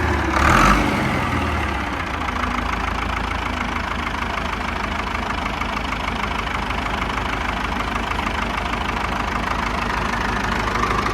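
A vehicle engine idling steadily, after a brief louder sound in the first second.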